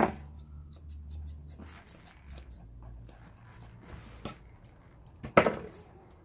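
Grooming scissors snipping through a West Highland terrier's ear hair, a quick run of short crisp cuts in the first two seconds and a few scattered snips after. Two louder thumps, one at the start and one about five seconds in.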